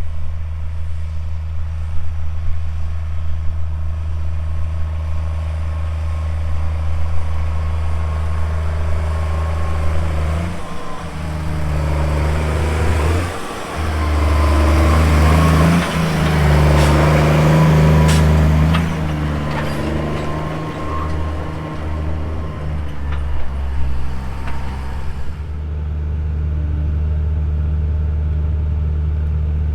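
Farm tractor's diesel engine running steadily under load, a deep even drone. From about ten to twenty-five seconds in it grows busier and louder, with a few sharp clanks.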